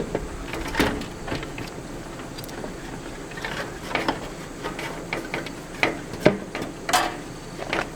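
Irregular clicks, knocks and scraping as the blower motor and wheel assembly of a Suburban RV furnace is handled and worked loose. The blower wheel is broken, with half of it blown apart.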